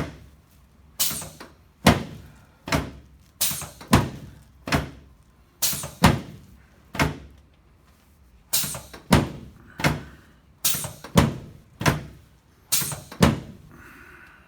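A series of about eighteen sharp thuds on a chiropractic treatment table, spaced irregularly half a second to a second apart, as the patient lying face down is given adjustment thrusts.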